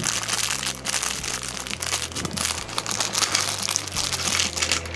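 Thin clear plastic bag crinkling steadily as hands handle and open it, over soft background music.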